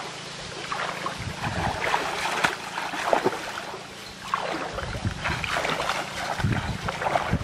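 Legs wading and splashing through shallow river water in an irregular series of sloshes and splashes. Wind rumbles on the microphone near the end.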